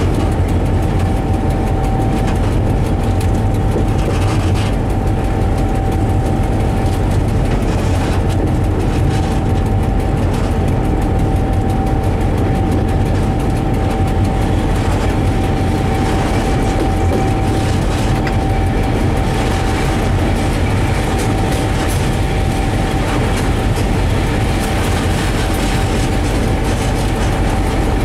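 Diesel locomotive running steadily at low speed. There is a low engine drone with a steady high whine above it, and the wheels roll over the jointed track with faint clicks.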